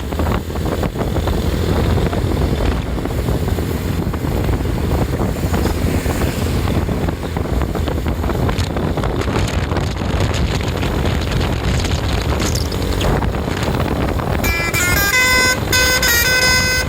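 Steady rumble of traffic and engine noise, then about fourteen and a half seconds in a bus's Basuri telolet horn starts playing a tune, several tones sounding together and switching pitch in steps.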